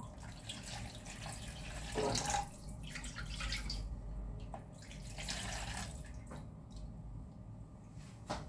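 Water poured from a kettle into a plastic tub to rinse out leftover spice paste, then the thin liquid poured and splashed into a wok holding the paste, in several uneven pours.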